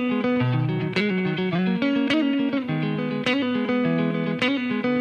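Rock song intro: an electric guitar alone, picking a repeating riff of single notes.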